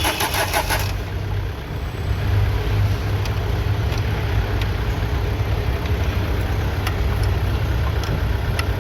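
Diesel engine turned over on its starter motor in a fast, even cranking rhythm that stops under a second in, with the freshly serviced injectors just refitted, followed by a steady low rumble.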